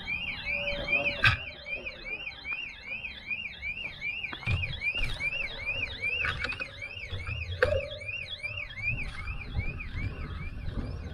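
Car alarm sounding: a repeating rising-and-falling electronic wail, about three cycles a second, fading toward the end. A few sharp knocks and a low rumble lie underneath.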